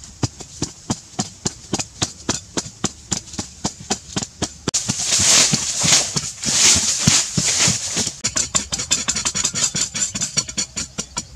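Hand digging in sandy soil: a hoe and a pointed digging stick striking the ground in repeated chopping strokes. In the middle comes a louder rush of scraping as loose sand is pushed and flung aside, then the strokes come quicker and closer together near the end.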